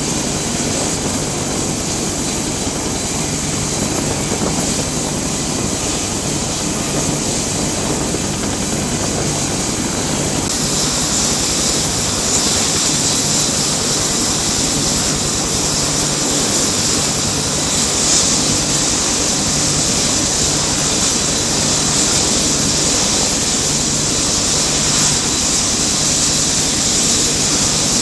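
Aircraft turbine engines running steadily during ground refuelling: a KC-130 Hercules's turboprops and AH-1W Super Cobra helicopters. The mix is a constant low hum under a strong high hiss, and the hiss grows louder about ten seconds in.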